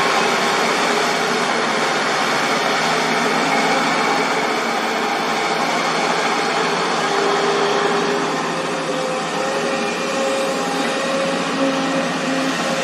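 Diesel engine of a working JCB excavator running steadily, with a faint whine that shifts in pitch in the second half.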